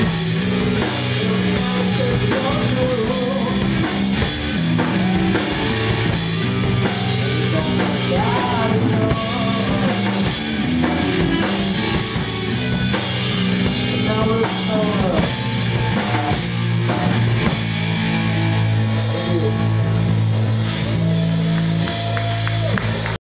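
A live rock band playing: electric guitars, bass guitar and drum kit, at a steady high level, with a guitar line of bent notes above the chords.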